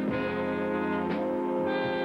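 Circus band music led by brass, with trombones and trumpets playing held chords.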